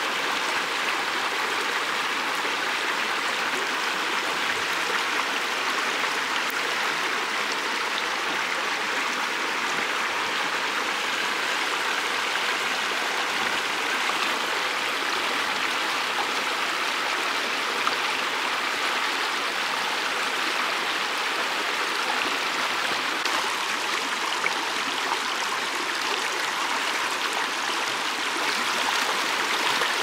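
Shallow mountain stream running over a stony bed: a steady, even rush of water that holds the same throughout.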